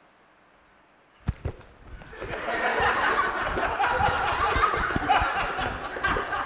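Near silence, broken about a second in by two sharp thumps, then a crowd of onlookers breaking into laughter that swells and stays loud.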